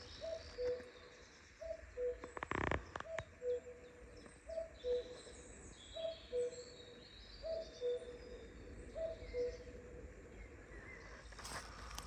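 Common cuckoo calling its two-note "cu-ckoo", higher note then lower, about seven times at an even pace, with small songbirds chirping faintly. A brief thud about two and a half seconds in.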